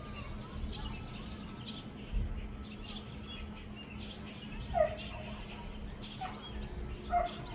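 A dog barking off and on, three short barks in the second half, over a steady low rumble with faint bird chirps; a dull low thump about two seconds in.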